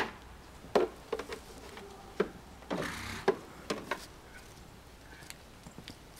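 Irregular sharp knocks and crunches, about a dozen, most in the first four seconds, with only a few faint ticks after that.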